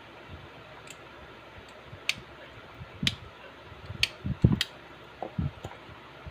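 A few sharp clicks and short low knocks of handling, scattered irregularly and busiest in the middle, over a steady low hiss.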